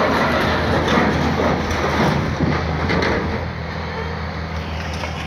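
Diesel engine of a scrap-handling grapple machine running steadily. For the first three seconds or so, sheet metal grinds and clanks several times as a scrapped bus panel is handled, then only the engine is heard.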